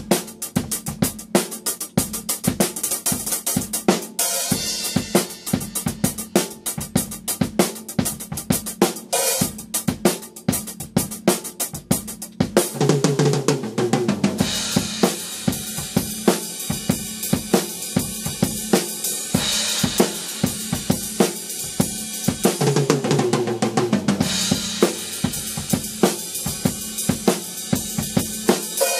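Acoustic drum kit played hard and fast: snare, bass drum and hi-hat with cymbal crashes. The cymbal wash thickens over the second half, and two rolling fills come about halfway through and again near the end.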